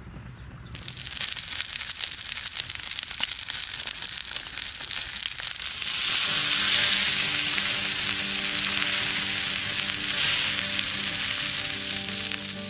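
Food sizzling and frying in hot fat, a crackling hiss that starts just under a second in and grows louder and denser about halfway through. Music with held notes comes in underneath at the same point.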